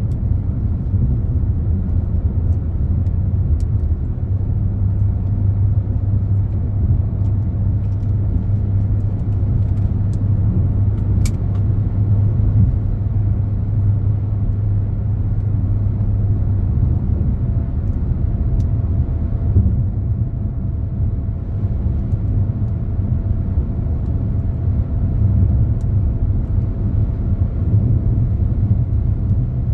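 Car driving along a highway: a steady low drone of engine and road rumble, with a single sharp tick about eleven seconds in.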